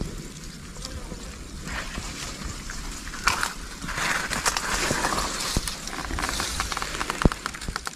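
Leafy undergrowth and reed stems rustling and crackling as they are grabbed, bent and pushed aside by hand, with a dense run of sharp snaps and crackles through the second half.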